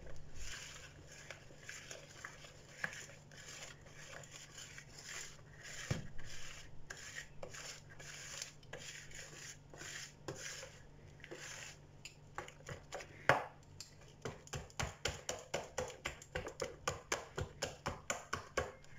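Hand whisk beating a thick cocoa batter in a plastic bowl, its wires slapping through the batter and scraping against the bowl. The strokes turn quicker and more regular in the second half, about four a second.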